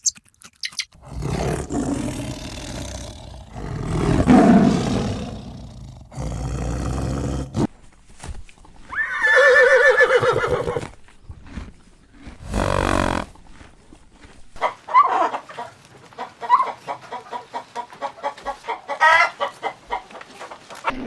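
A series of farm animal calls one after another: deep, loud lowing calls in the first few seconds, a higher pitched call about ten seconds in, then a long run of short, quick calls over the last several seconds.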